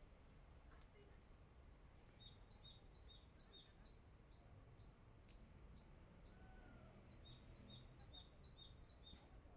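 Faint outdoor birdsong: a small songbird sings two runs of quick, repeated high notes, each lasting about two seconds and a few seconds apart, with single notes in between. A low, steady outdoor rumble sits underneath.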